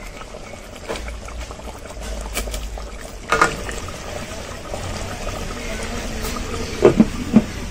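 Steel ladle stirring mutton curry in a metal handi, the gravy sloshing, with a sharp metal clank against the pot about three seconds in. Near the end, three quick metal clinks as the lid is set on the pot.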